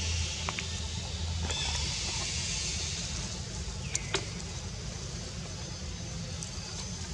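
Outdoor forest ambience: a steady high hiss over a low rumble, with a few sharp clicks and a short falling squeak about four seconds in.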